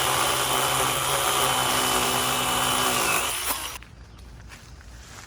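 Battery-powered chainsaw running under load as it cuts into a thick tree limb, with a steady motor whine. About three seconds in the whine drops in pitch as the motor winds down, and the saw stops.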